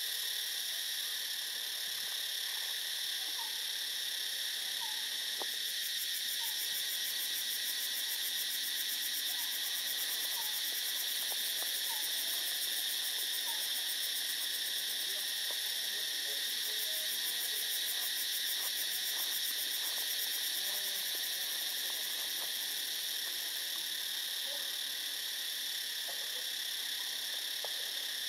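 Steady, high-pitched chorus of forest insects, shrill and unbroken, with faint short chirps from other animals scattered through it.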